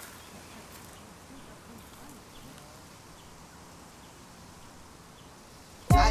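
Quiet garden ambience with faint, repeated animal calls. Near the end, loud hip-hop music with rapping starts abruptly.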